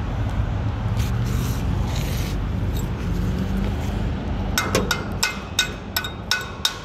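A steady low rumble, then from about two-thirds of the way in a run of sharp, ringing metallic taps, about three a second: a hammer striking steel.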